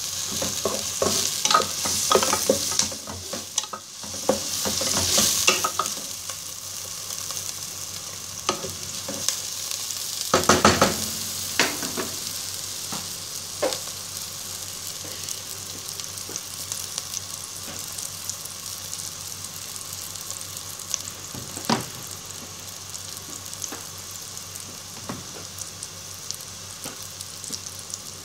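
Chopped onion and garlic sizzling in hot oil in an aluminium pot, with a spatula stirring and scraping against the pot over the first few seconds. A brief clatter comes about ten seconds in, then steady sizzling with occasional pops.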